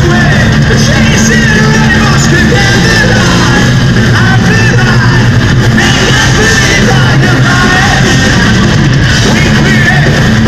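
Power metal band playing live: electric guitars, drums and keyboards under sung lead vocals, loud and steady. Recorded by a phone in the crowd, so the sound is dense and compressed.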